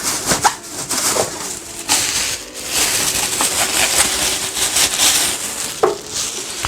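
Packaging rustling and crinkling as a boxed satellite speaker is handled and unwrapped, with scattered clicks and a few short squeaks.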